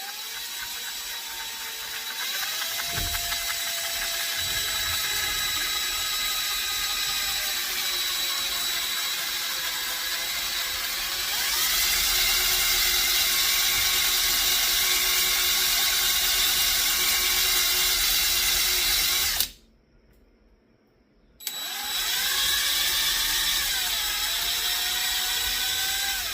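Hand-held electric drill running at low speed, drilling a pilot hole into a headless fastener so that a screw extractor can grip it. The motor whine climbs in pitch as it spins up, gets louder about halfway through, stops for about two seconds near the end, then starts again.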